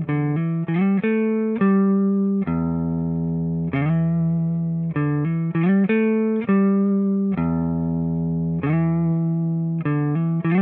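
Background music: a plucked-string melody played in quick runs of notes over a low sustained bass tone.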